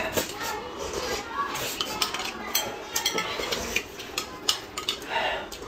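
Close-up eating sounds: noodles being slurped and chewed, with chopsticks and a metal spoon clicking and clinking against a plate and a glass mug in scattered sharp taps.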